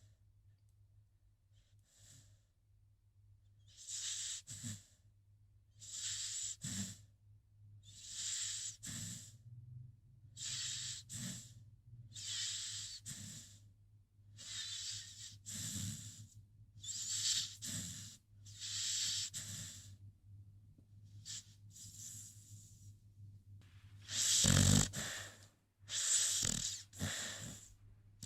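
American Pit Bull Terrier snoring in its sleep: airy breaths come about every two seconds, starting a few seconds in, and one breath near the end is louder.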